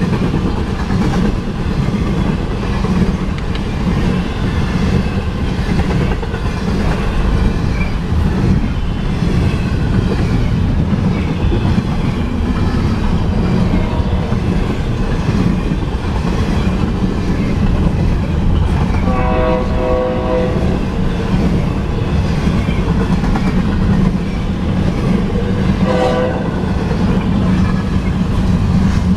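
Two freight trains passing each other at a two-track crossing: a steady rumble and clatter of double-stack intermodal cars' wheels over the rail joints. A train horn sounds briefly a little past halfway, and once more, shorter, near the end.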